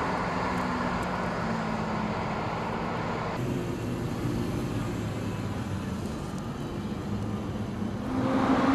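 An engine running steadily, with an abrupt change in the sound about three and a half seconds in.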